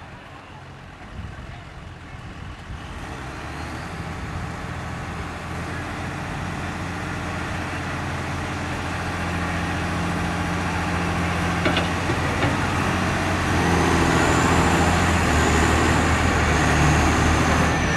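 Pickup truck engine under heavy load pulling a weight-transfer sled, growing steadily louder throughout, with a high whine rising in over the last few seconds.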